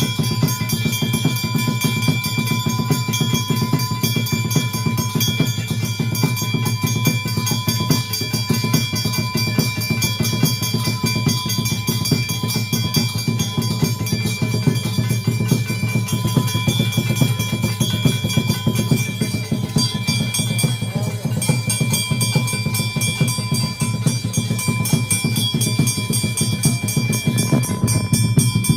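Fast, continuous drumming with steady ringing tones held above it throughout, the percussion of a Hindu puja.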